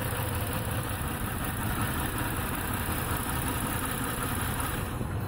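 2008 Ford Taurus X's 3.5-litre V6 idling steadily while misfiring on one cylinder: cylinder 1's injector is getting no pulse.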